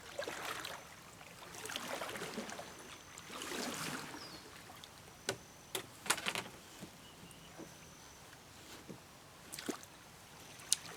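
Sprite 11 canoe on the water: a few swishes of water from paddle strokes in the first few seconds, then several sharp knocks, two close together around the middle.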